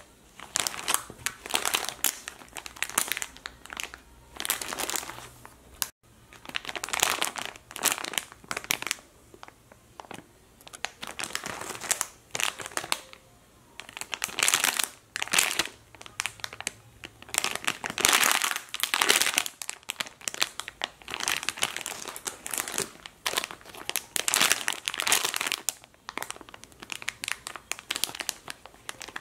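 Clear plastic packaging crinkling in repeated bursts as foam squishy toys are squeezed through their sealed bags.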